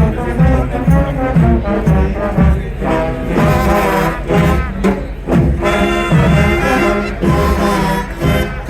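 Street brass band playing live: horns carrying the melody over a steady drum beat.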